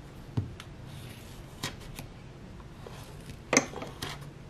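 A few light taps and knocks from handling a pen and a wooden disc on a table while tracing a circle on suede leather, the sharpest about three and a half seconds in.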